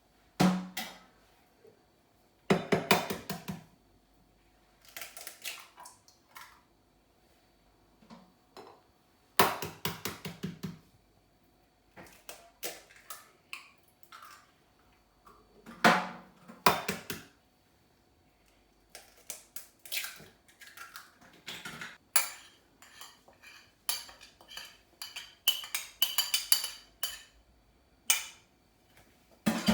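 Bowl, cups and spoons clinking and clattering in short bursts every few seconds as cake ingredients are put into the bowl, with a quicker run of small clinks over the last third.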